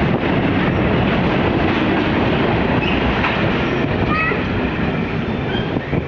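Freight train wagons rolling past close by: a loud, steady rumble and rattle of wheels on the rails.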